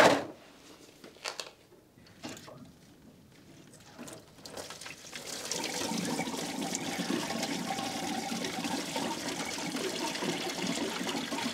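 A few light clicks and knocks of tools, then from about five seconds in, engine coolant draining out of the Porsche 924's cooling system in a steady pouring stream as the system is emptied.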